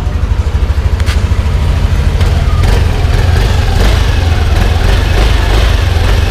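A small engine idling close by, a loud, steady low throb, with a few light metal clicks over it.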